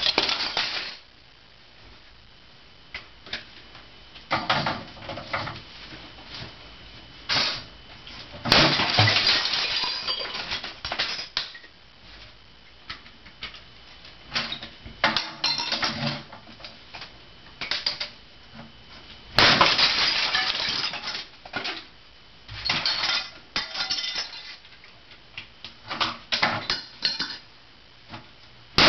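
A hammer smashing brittle plastic CDs and disc cases, with cracking, shattering and shards clinking. The blows come in bursts of several quick strikes with short pauses between them.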